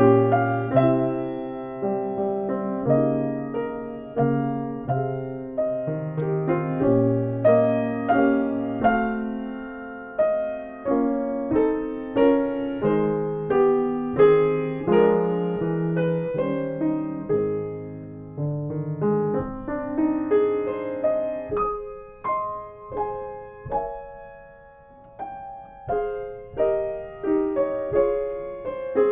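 Solo piano playing a slow, gentle piece, chords and melody notes struck and left to ring, with a softer stretch near the end.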